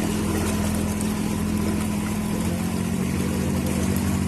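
A motorboat's engine running steadily, a low, even drone whose pitch shifts slightly about two and a half seconds in.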